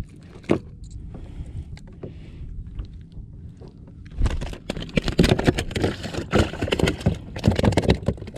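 Close handling noise of a freshly caught porgy being unhooked and held against a chest-mounted camera. At first there are a few light clicks. From about halfway through comes a loud, dense run of scraping, rubbing and knocking right on the microphone.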